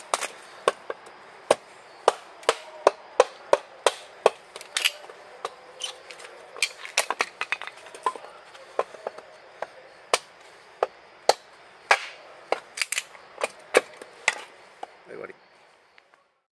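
Bark River Trakker knife chopping into small sticks of firewood on a wooden stump, splitting them into kindling: a quick series of sharp wooden knocks, about two or three a second, that stops about fifteen seconds in.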